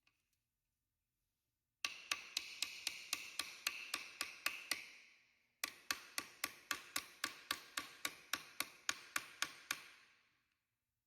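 Hammer tapping on hardened steel, driving a screw extractor (easy out) into a drilled-out broken bolt: two runs of steady, evenly spaced ringing taps, about four a second, with a short pause between them.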